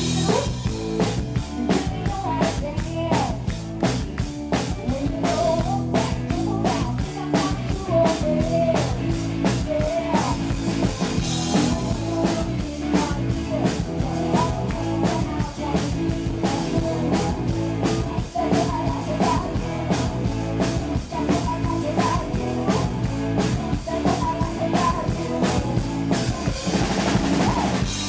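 Live rock band playing: drum kit keeping a steady driving beat under electric guitars and bass.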